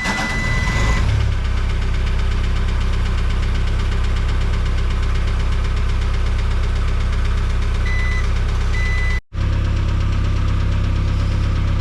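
Case 410 skid loader's diesel engine starting cold and settling into a steady idle, with a split-second dropout about nine seconds in.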